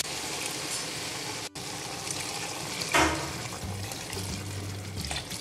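Cupfuls of chicken broth being poured from a mug into a pot of sautéed rice and vegetables, the liquid splashing in. There is one sharper, louder sound about three seconds in.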